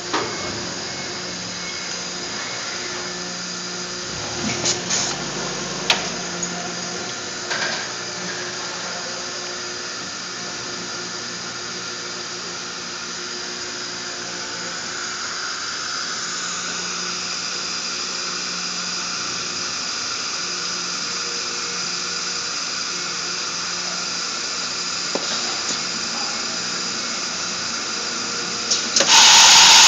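Automated sprue-milling cell running: a steady machine hum with a high drill-like whine from the drill press spindle, and a few sharp clicks in the first eight seconds. The whine grows stronger about halfway through, and about a second before the end a much louder steady hiss sets in.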